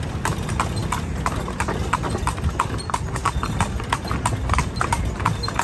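A carriage horse's hooves clip-clopping on the road at an even pace, about three to four strikes a second, as it pulls a calèche, over a steady low rumble.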